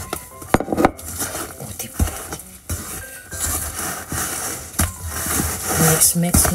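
Wooden spatula stirring pancake batter in a stainless steel mixing bowl: wet scraping with irregular sharp knocks of the spatula against the bowl.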